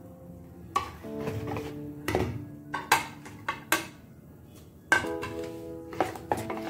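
Background music, over about six sharp clinks and taps of a wire whisk and spoon against a plastic mixing bowl as semolina idli batter is mixed.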